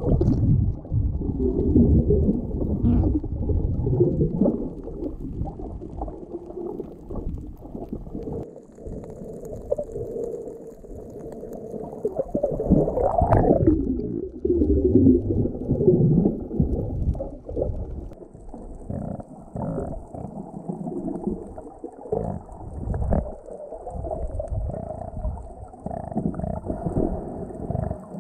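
Muffled underwater rumbling and water movement picked up by a camera in a waterproof housing, swelling and easing every few seconds, with almost no high sound.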